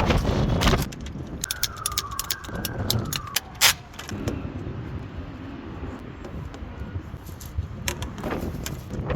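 Metal clinking and sharp clicks, as of plumbing tools and fittings being handled. A thin squeal, falling slightly, runs for about two seconds near the start, and one louder click comes a little later.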